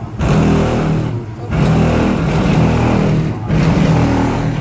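Loud bass-heavy music from three Sundown SV3 15-inch subwoofers on a CT Sounds 10K amplifier, heard from outside the Chevy K5. The deep bass notes pulse, cutting out briefly about a second in and again past three seconds.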